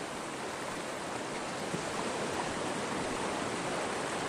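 Steady rush of flowing water from the storm-swollen creek.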